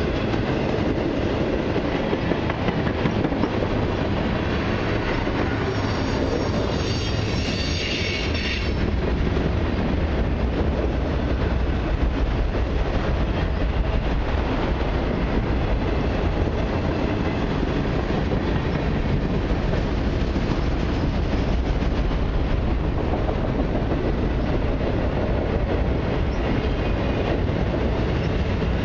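Long freight train of autorack and tank cars rolling past at steady speed, its wheels running over the rails. A high-pitched wheel squeal comes in about four seconds in and stops about nine seconds in.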